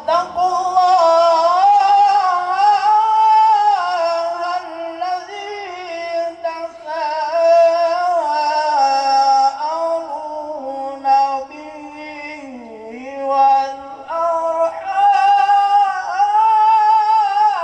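A man's voice chanting melismatically, unaccompanied, into a microphone. He holds long notes that waver and bend in pitch, with short breaths between phrases.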